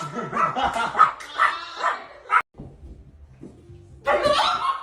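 A dog barking and yapping in quick succession. The barking breaks off abruptly about halfway through, and a loud burst of barking returns near the end.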